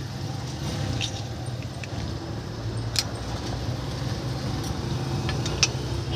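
A few sharp metal clicks of a ring wrench and feeler gauge against a rocker arm's adjusting screw and locknut as the valve clearance is set; the loudest come about three seconds in and near the end. A steady low hum runs underneath.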